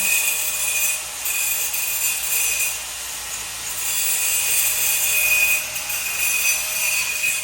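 Repeated rough scraping strokes, each a second or so long, with a steady high-pitched tone running under them.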